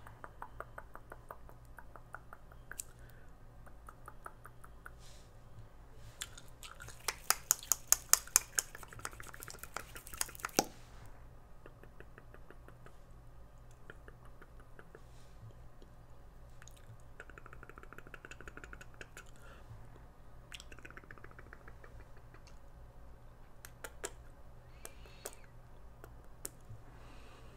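Gum chewing close to the microphone: scattered soft clicks and smacks, with a run of louder sharp clicks, about three or four a second, starting about seven seconds in and lasting some four seconds.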